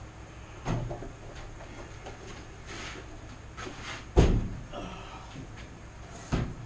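A WEN 10-inch benchtop bandsaw being lifted and set down on top of a filing cabinet: three dull thumps, the loudest a heavy thud about four seconds in, with some rustling between.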